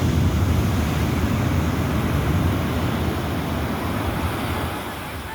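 Sea waves breaking and washing up a beach: a steady rush of surf that eases off near the end.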